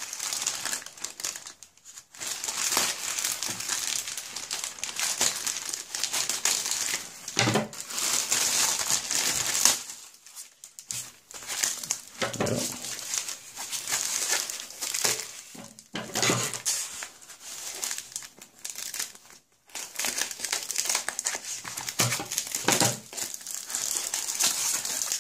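Plastic packaging crinkling and rustling as it is handled and pulled apart: a plastic mailer bag and a sheet of foam wrap around a small box. It comes in long stretches broken by a few short pauses.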